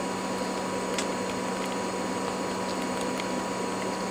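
Steady workbench hum and hiss, with a low tone and a higher tone held throughout, and one faint tick about a second in.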